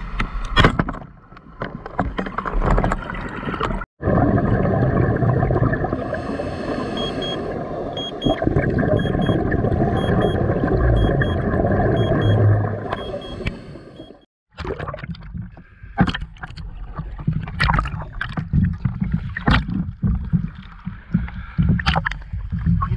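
Underwater scuba sound: a rushing, gurgling stream of exhaled regulator bubbles and water noise. It breaks off abruptly twice, and a string of short high beeps runs through the middle part. In the last part come irregular sharp splashes and clicks of water just below the surface.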